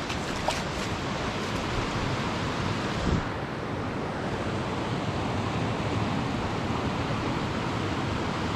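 Mountain stream rushing over rocks: a steady wash of water noise, with one soft thump about three seconds in.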